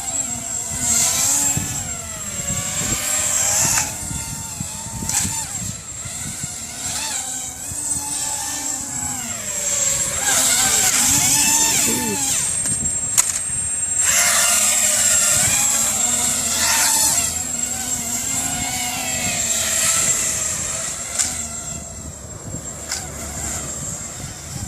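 FPV racing quadcopter's motors and propellers whining in flight, the pitch rising and falling constantly with the throttle. A steady, very high thin tone sits underneath.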